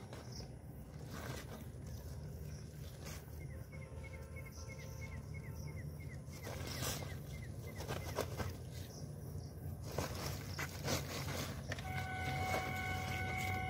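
Woven plastic feed sacks rustling and crinkling in short bursts as they are shaken out, over a steady low hum. A bird chirps repeatedly in quick succession a few seconds in, and a steady tone with overtones starts near the end.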